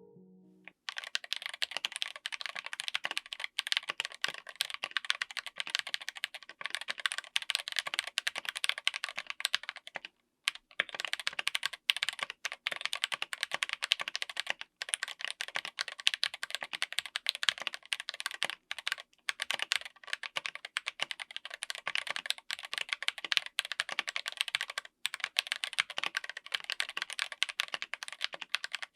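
Fast typing on a mechanical keyboard fitted with stock Akko x TTC Demon linear switches on an FR4 plate: a dense, continuous stream of keystroke clacks with a few brief pauses, starting just under a second in.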